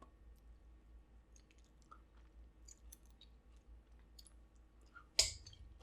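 Faint chewing with small wet mouth clicks while eating, then a sudden louder noisy sound with a low thump near the end.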